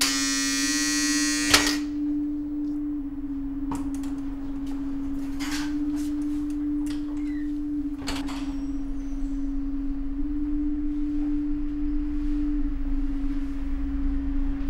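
A sustained low drone tone that wavers slightly in pitch. Over it, an electric door-release buzzer sounds for about a second and a half and ends in a sharp click, followed by a few faint scattered clicks.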